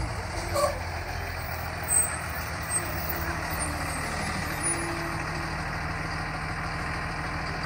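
Blue Bird school bus engine running with a steady low rumble as the bus pulls up and stops, then idles.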